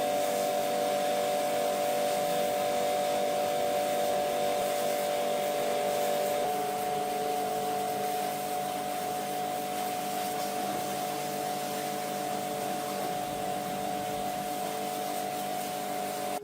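A motor-driven tool or machine running steadily with a hum and a hiss, its tone shifting slightly about six seconds in.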